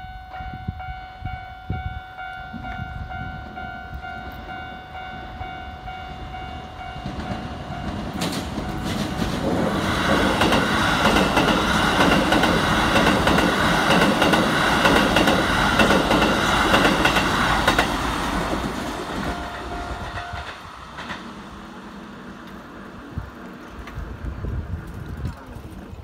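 Keikyu 1000 series eight-car train passing over a level crossing, its wheels clattering rhythmically over the rail joints; it builds from about eight seconds in, is loudest in the middle and fades after about eighteen seconds. A level-crossing warning bell rings steadily before the train arrives and again briefly as it clears.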